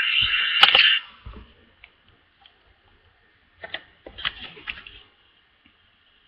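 Thin-sounding music that cuts off about a second in, followed by a few scattered clicks and knocks of handling, then near quiet.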